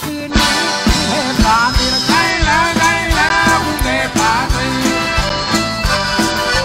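Live band music: a rock-style song with a steady drum beat under held instrument notes and a wavering lead melody line.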